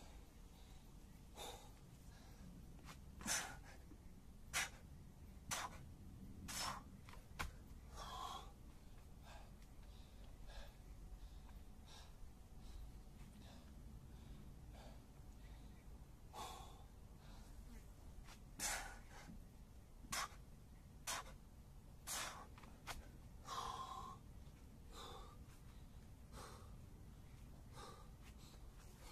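A man breathing hard while recovering from strenuous exercise: loud, sharp exhalations and gasps, about one a second, coming in two bouts with a calmer stretch between.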